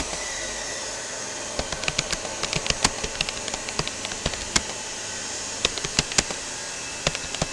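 Typing on a Rapoo computer keyboard: irregular keystroke clicks, some in quick runs and some spaced apart with short pauses, over a steady hiss.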